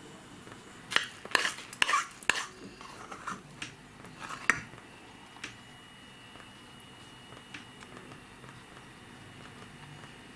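Metal spoon clinking and scraping against a pan and an aluminium lollipop mold while molten burnt sugar is spooned into the mold. There is a cluster of sharp clinks in the first few seconds, then a few faint scattered ticks.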